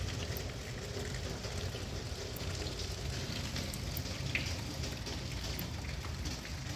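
Steady rain falling, an even continuous hiss with scattered faint ticks of single drops.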